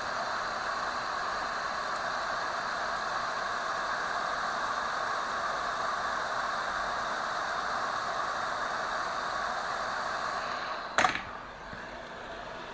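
Hot air rework station blowing a steady hiss of hot air, heating a spot on the logic board where flux has just been applied. About eleven seconds in there is a sharp click and the hiss drops to a quieter steady whir.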